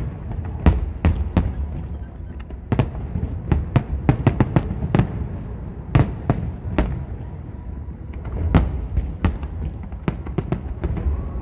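Aerial fireworks shells bursting in quick, irregular succession: many sharp bangs and cracks over a continuous low rumble.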